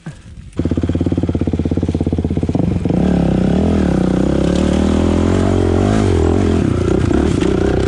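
Kawasaki KX450F single-cylinder four-stroke dirt bike engine coming in suddenly under a second in, pulsing evenly, then revving up and down from about three seconds on as it pulls the bike up a steep hill climb.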